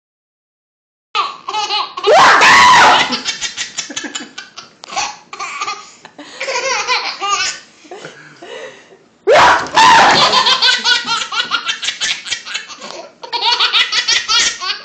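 Baby laughing hard in long runs of quick laughs, with a loud high squeal about two seconds in and another about nine seconds in.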